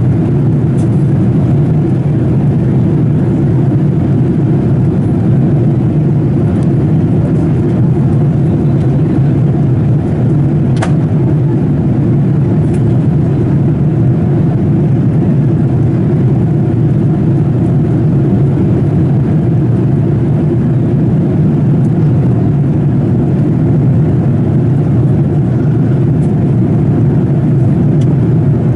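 Steady cabin noise of a Boeing 787-8 in flight: engine and airflow noise heard inside the cabin as a deep, even rumble, with one faint click about eleven seconds in.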